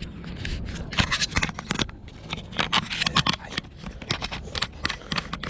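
Rustling, scraping and clicking of hands rummaging through a bag, with quick irregular crinkles and knocks.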